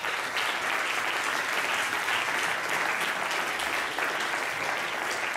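An audience applauding at a steady level, many hands clapping together.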